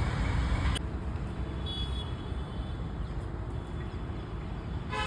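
Low, steady rumble of road traffic, with a brief faint horn toot about two seconds in.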